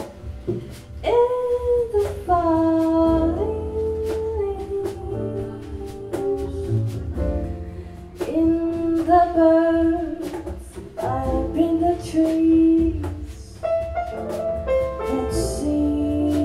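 A live jazz combo playing: a lead melody line in short gliding phrases over upright double bass, drums and piano, ending on a long held note.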